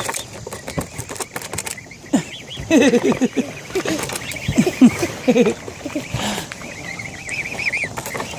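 A swan family being fed crackers: high, wavering peeping calls from the young birds, short low calls in the middle, and scattered sharp snaps and clicks.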